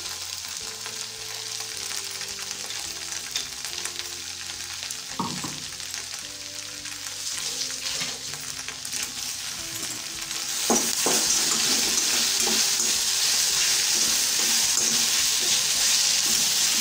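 Okra (bhindi) frying in a stainless-steel kadai, with ground masala paste added on top, a few knocks from the mixer jar and a steel spatula scraping the pan. About ten seconds in the mix is stirred, and the sizzling gets louder from then on.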